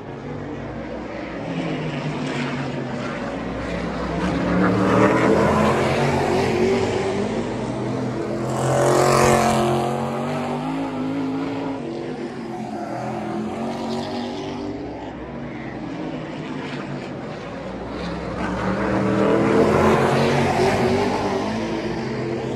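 Modified race cars lapping a short oval track, their engines running hard throughout. The sound swells as a car passes close by, at about five, nine and twenty seconds in, and eases off between passes.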